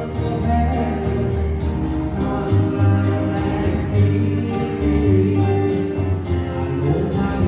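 A song playing: music with a steady bass and a singing voice.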